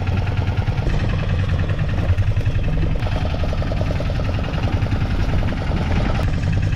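Boat's outboard motor running steadily with a fast, even pulse.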